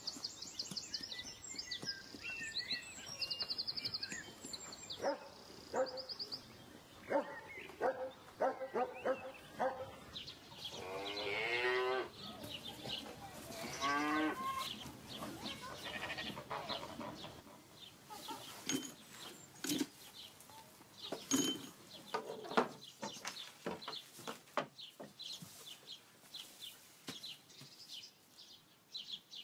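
Farmyard sounds: a farm animal calls twice in the middle, each a wavering call of about a second, with high bird chirps near the start and scattered knocks and footfalls throughout.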